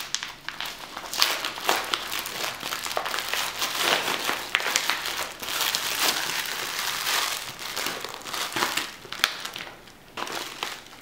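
Plastic snack packet crinkling and crackling as it is torn open by hand and its small inner plastic bags of roasted groundnuts and sugar are pulled out, with many sharp crackles.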